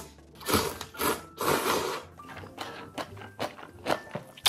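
A person slurping ramyeon noodles in three noisy sucking rushes during the first two seconds, then softer clicks and chewing.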